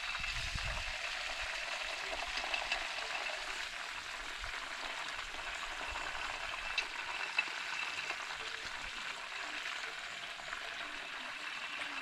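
Chicken pieces frying in hot oil: a steady sizzle with small crackles and pops.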